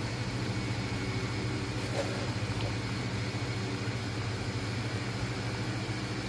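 Steady low mechanical hum, with a faint tick about two seconds in.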